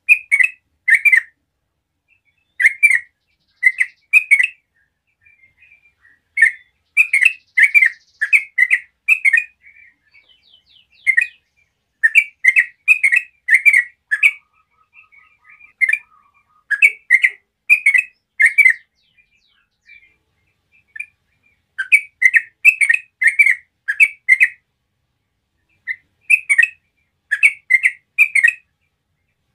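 A bird chirping: short, loud chirps in quick runs of two to six, with pauses of a second or two between the runs.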